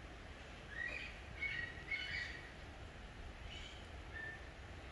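Birds chirping: a run of short, high chirps from about one to two and a half seconds in, then a few more near the end, over low background rumble.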